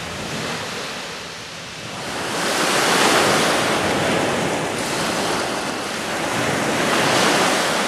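Small waves breaking and washing up a sandy beach, the surf swelling twice, a few seconds apart, with wind rumbling on the microphone.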